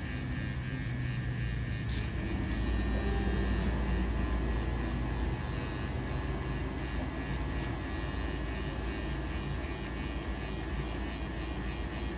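Electric hair clipper buzzing steadily as it cuts a man's hair, with a single sharp click about two seconds in.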